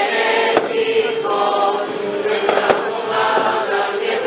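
A crowd singing a hymn together. Two sharp bangs of festival rockets (cohetes) cut through, about half a second in and again near three seconds.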